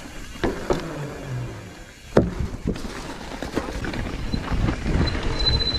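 Mountain bike crossing a wooden see-saw plank, with one loud thump about two seconds in as the board comes down. After it the bike rattles steadily over a rough, leaf-covered trail, with many small knocks from the frame, chain and tyres.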